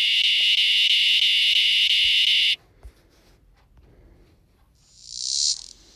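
Recorded cicada song played back: a steady, high, loud buzz that cuts off suddenly about two and a half seconds in. Near the end a second, higher-pitched cicada buzz swells in.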